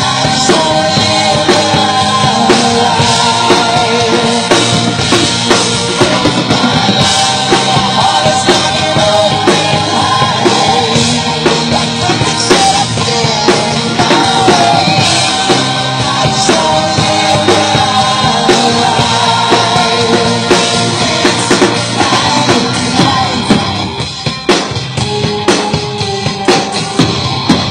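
Acoustic drum kit played live to a rock backing track with a melody: bass drum, snare and cymbals keep a steady driving beat. About 24 seconds in, the backing thins and the drum hits stand out more.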